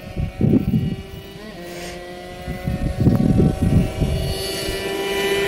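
Kawasaki KR two-stroke motorcycle on its stock engine and stock exhaust approaching at speed, its steady engine note growing louder. There are wind gusts on the microphone about half a second in and again near the middle.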